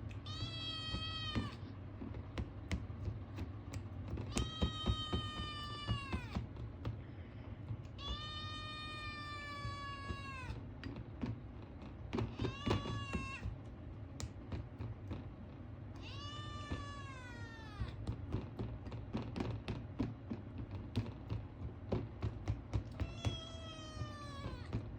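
Ragamuffin kitten meowing for food: six long, drawn-out meows a couple of seconds apart, each sliding down in pitch at the end. Light clicking and tapping can be heard between the calls.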